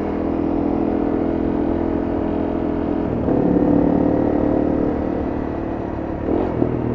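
Honda CRF250M's single-cylinder four-stroke engine running as the bike rides off, the pitch changing and the level rising about three seconds in as it speeds up.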